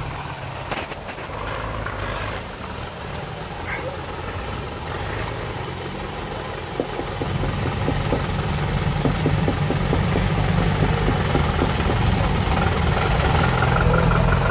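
Engine of a GAZ off-road truck running as it drives through a flooded, muddy forest track, getting louder as the truck comes closer from about halfway through.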